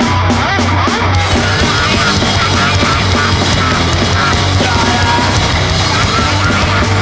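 Loud grindcore/noise music: a dense wall of distorted sound at a steady level, with short screeching squeals wavering over the top.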